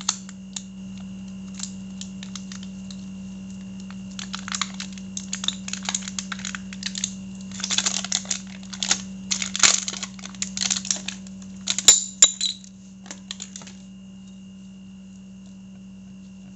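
New motorcycle brake pads being unpacked and handled: crinkling packaging and light clicks and clinks in busy clusters from about four seconds in until about fourteen seconds, with one sharper clack near twelve seconds.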